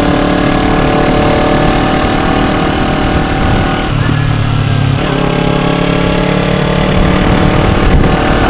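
Kawasaki Ninja 250's parallel-twin engine running steadily while the bike is ridden along a winding road, with rushing wind noise on the microphone. A little after the middle the engine note changes for about a second, then it settles back to a steady run.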